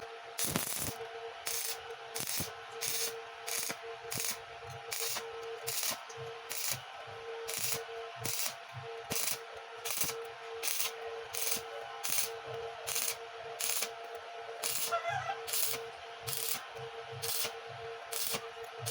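Welding arc sizzling in regular pulses about twice a second, over a steady hum.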